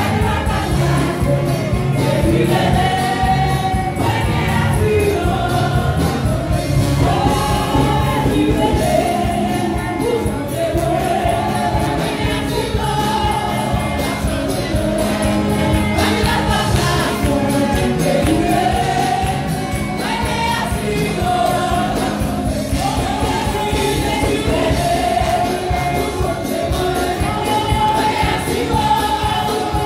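Congregation singing a gospel worship song together over music with a steady, driving beat and jingling percussion.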